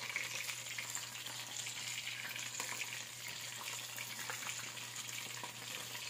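Chicken necks deep-frying in hot oil in a wok: a steady sizzle dotted with small crackles, while a metal spatula stirs through the pieces.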